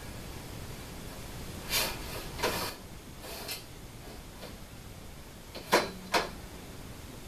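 Linear shaft rail being worked into an aluminium extrusion, metal on metal: sliding scrapes about two seconds in, then two sharp metallic clicks near the end, the first with a brief ring.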